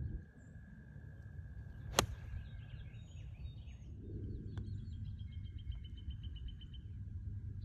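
A golf iron striking the ball, one sharp crack about two seconds in, and a fainter click a couple of seconds later. Birds are singing, including a fast, even trill of repeated notes, over a low wind rumble.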